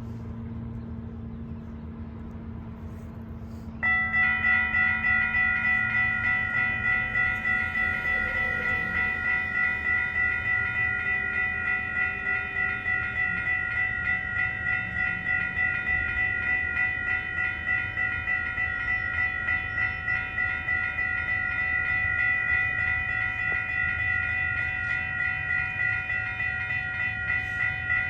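WCH electronic railroad crossing bell starting up about four seconds in and then ringing steadily, a bright electronic ding repeating about twice a second over a low background rumble.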